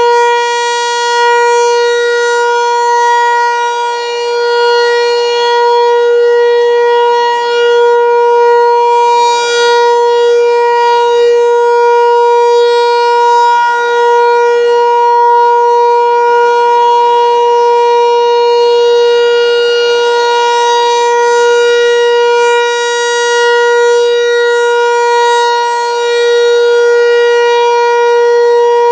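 American Signal Tempest T-128 outdoor warning siren sounding its monthly test: one steady, loud held note with many overtones, its pitch not rising or falling. The loudness dips and swells briefly every several seconds as the rotating siren head sweeps past.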